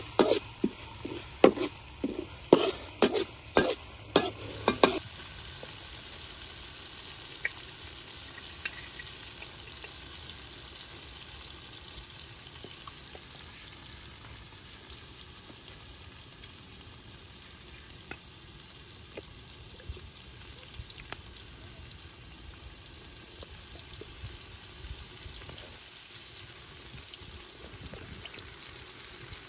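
Metal spatula scraping and knocking against a steel wok, about two strikes a second, for the first five seconds. Then a chopped chili mixture frying in oil with a steady, quiet sizzle and an occasional tick.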